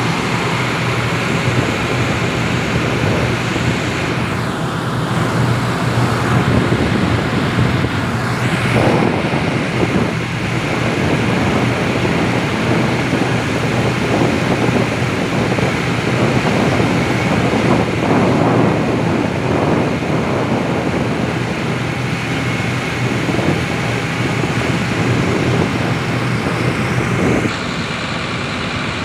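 Heavy diesel engines of earthmoving machinery running steadily, with a constant low hum and noise that swells and eases at moments. The sound shifts slightly near the end.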